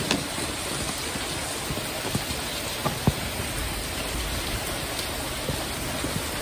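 Steady heavy rain falling on a metal roof, with a few sharp taps on top, the loudest about three seconds in.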